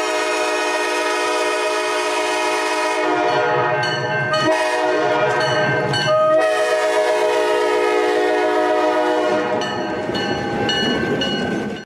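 Locomotive air horn sounding a chord of several steady tones in long blasts that run almost without a break, with the chord shifting several times before it cuts off suddenly.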